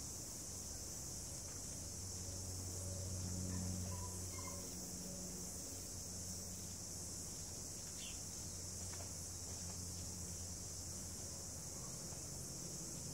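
Quiet outdoor ambience: a steady high hiss and a low hum that swells briefly about four seconds in, with a few faint short chirps.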